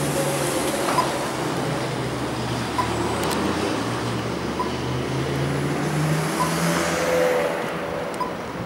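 Road traffic at an intersection: vehicle engines running and passing, with a short tick repeating evenly about every two seconds, the slow locator tone of a pedestrian crossing pushbutton at the traffic lights.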